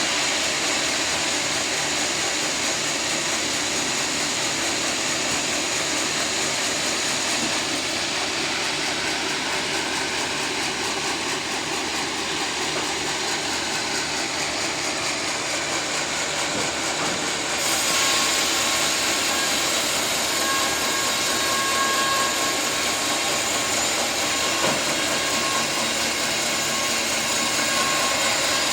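Sawmill running and sawing a teak log into boards: a steady, dense machine noise. About two-thirds of the way through, it turns brighter and harsher.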